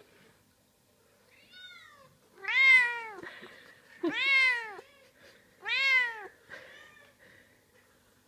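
Domestic cat meowing repeatedly: three loud, drawn-out meows about a second and a half apart, each rising then falling in pitch, with fainter meows just before and after them.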